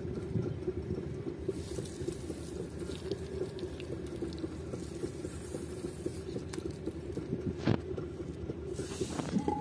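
Spinning pottery wheel running with a steady hum and a dense, fast light rattle, while wet clay is worked by hand with soft wet squelching; a single sharp knock comes about three-quarters of the way through.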